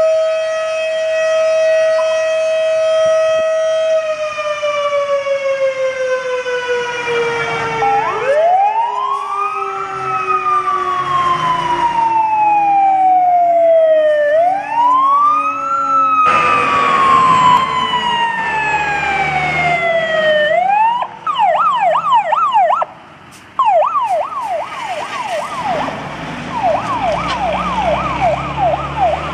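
Civil-defence siren holding a steady tone, then slowly winding down from about four seconds in. From about eight seconds a fire engine's siren wails up and down over it, about one cycle every two seconds, then switches to a fast yelp of several cycles a second about twenty seconds in, with the truck's engine running underneath.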